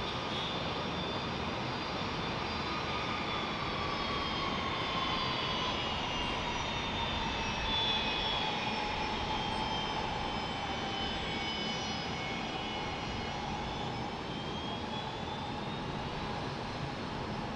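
Airbus A380's four jet engines at taxi power as the airliner turns on the taxiway: a steady rush of engine noise with high whining tones that slowly drift lower in pitch.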